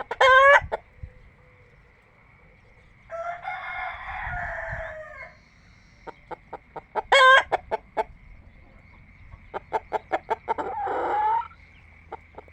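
Desi chickens calling: a rooster crows, hens cluck in quick runs of short pulses, and two short, loud calls ring out, one right at the start and one about seven seconds in. A faint steady high-pitched tone runs underneath.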